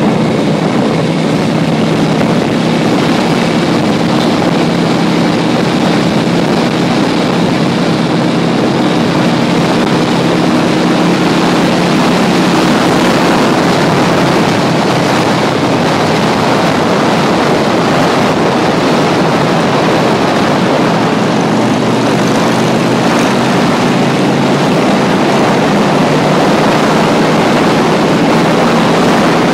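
Motorcycle engine running steadily at road speed, buried in loud wind rush on the microphone; its hum sinks under the wind for several seconds midway.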